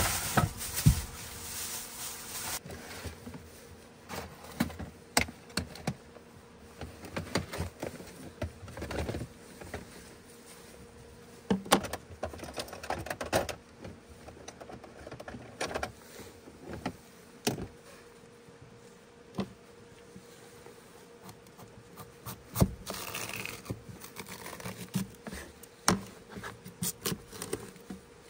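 Camp-kitchen and gear handling: scattered clicks, knocks and clatter of plastic bins, lids and gear being moved, over a faint steady hum. A rushing noise fills the first two seconds or so.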